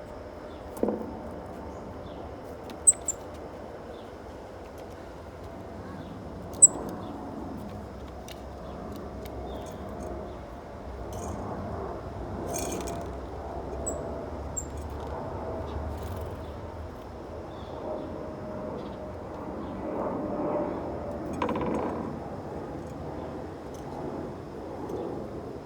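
Small birds giving short, sharp, high chirps, some single and some in quick pairs, scattered through a steady low background murmur. A dull thump sounds about a second in.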